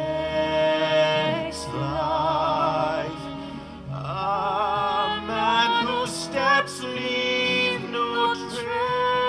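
Operatic female voice singing long held notes with wide vibrato over soft accompaniment, played back through a Mackie CR-series studio monitor speaker.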